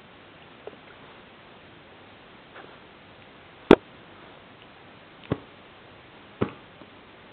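Miniature pinscher puppy play-biting a hand, making short sharp snapping sounds: two faint ones, then three louder ones a second or so apart, the loudest about halfway through.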